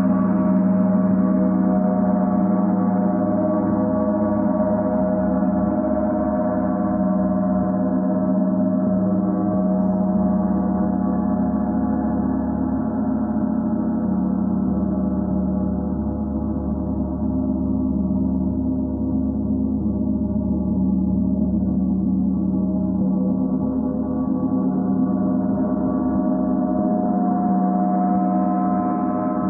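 Large symphonic gong played continuously with two soft mallets, making a dense, sustained wash of many overlapping tones. It grows a little duller around the middle and brightens again near the end.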